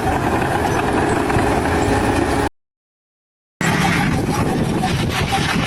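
Steady, loud machinery noise, broken partway through by about a second of dead silence, then similar steady noise with a few brief faint tones.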